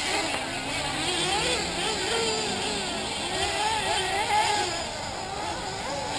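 Several 1/8-scale nitro RC buggies' small glow-fuel engines racing: overlapping high-pitched buzzes that keep rising and falling as the throttles open and close.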